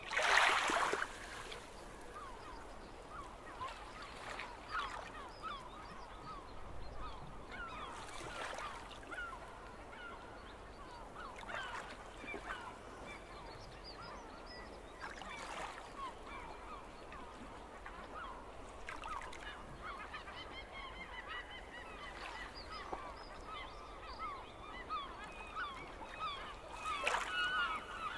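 Gulls calling: many short, overlapping cries repeated throughout. There is a louder burst of calls right at the start, and a denser, louder chorus near the end.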